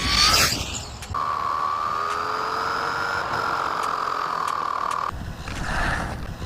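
Wltoys 124018 RC buggy's brushed electric motor whining. It revs up briefly in the first second, then holds a steady high whine for about four seconds that cuts off abruptly, followed by a rougher rushing noise near the end.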